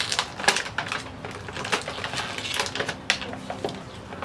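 Clear plastic toy bag crinkling and rustling as it is handled, a rapid, uneven series of crackles.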